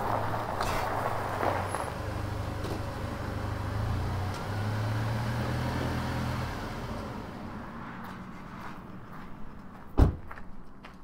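2019 Jeep Cherokee KL's 2.0-litre turbocharged four-cylinder running without a muffler at low revs as the vehicle rolls slowly. Its steady note dies away about two-thirds of the way through, and a single sharp thump comes near the end.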